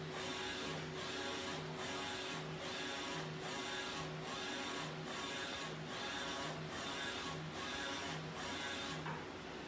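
Direct-to-garment T-shirt printer printing: the print-head carriage shuttles back and forth in an even rhythm, about five passes every four seconds, over a steady hum. The passes stop about nine seconds in as the print finishes.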